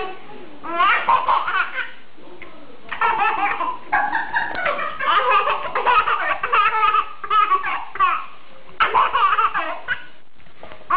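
A two-year-old child laughing in bursts of high-pitched giggles and belly laughs, with short pauses between them, as a large dog licks her face.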